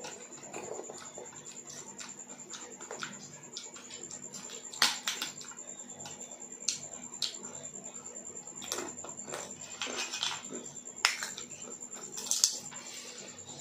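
Close-up eating sounds: a person chewing and smacking her lips while eating rice and kadhi curry by hand, with fingers mixing the rice into the curry on a plate. Sharp, irregular clicks and smacks are scattered through, the loudest about five, eleven and twelve seconds in.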